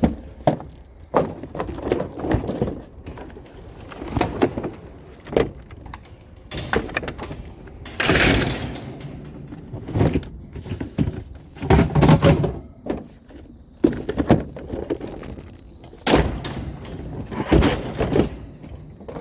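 Irregular knocks, clunks and thumps from scrap finds being handled and loaded, with a longer scrape about eight seconds in and a heavier thump around twelve seconds.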